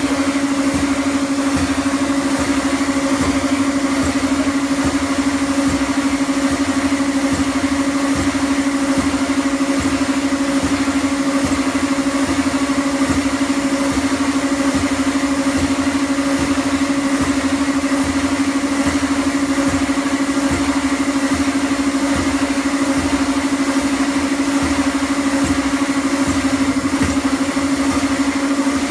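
Escalator running: a steady, loud mechanical hum with a fast, continuous low rattle from the moving steps.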